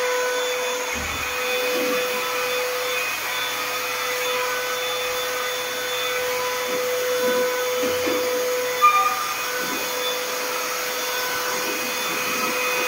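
Electric orbital sander with a vacuum dust-extraction hose running steadily, a constant whine, as it sands the joints of a fiber board ceiling to level them.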